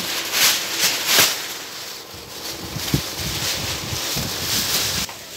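Plastic packaging and a large plastic sack crinkling and rustling as wrapped clothing packs are handled and stuffed into the sack. There are louder crinkles about half a second and a second in and a knock around three seconds. The rustling stops abruptly near the end.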